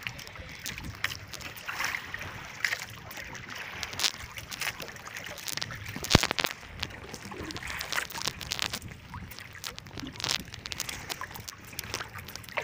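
Water sloshing against the hull of a small wooden outrigger boat, with scattered knocks and taps on the wood as a fishing line is hauled in by hand; the sharpest knock comes about six seconds in.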